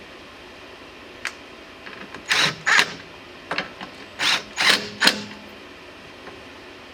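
Metal parts knocking and scraping as the transmission cooler's mounting bracket is shifted into place: a single click, then a run of short, loud clunks and scrapes over about three seconds.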